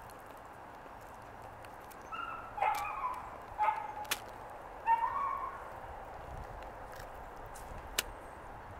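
A dog barking four times, short high-pitched barks starting about two seconds in. A couple of sharp clicks come between them, and one more comes near the end.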